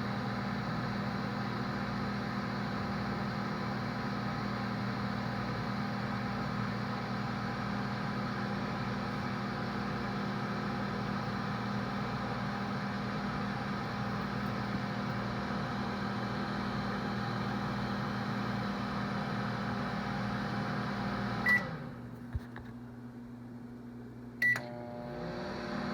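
Microwave oven running with a steady hum. About three-quarters of the way through it beeps and stops, a click follows, and a few seconds later it beeps again and starts up once more.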